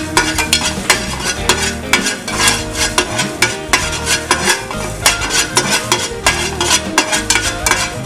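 Fenugreek (methi) seeds dry-roasting in a pan without oil while being stirred, the stirring utensil scraping the pan and the seeds rattling in quick, irregular clicks, several a second.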